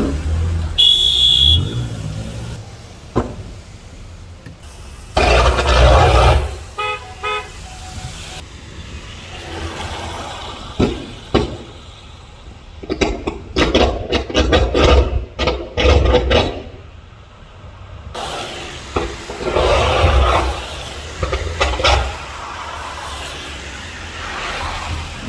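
City street traffic: vehicles passing and car horns sounding, with a rapid run of sharp cracks or knocks in the middle.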